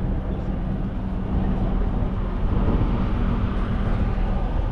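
Car engine running at a steady idle, a low even hum with a broad rush of noise over it.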